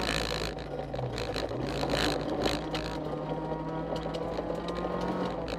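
Honda CR-X rally car's engine, heard from inside the cabin, driven hard on a gravel stage; its pitch dips about a second in and climbs again. Steady tyre and gravel noise runs underneath.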